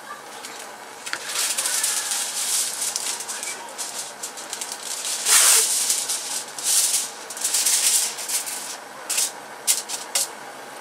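Sheet of non-stick aluminium frying-pan foil crinkling as it is pulled from its box and pressed into a frying pan. Irregular bursts of rustling, loudest about halfway through, then a few short sharp crackles near the end.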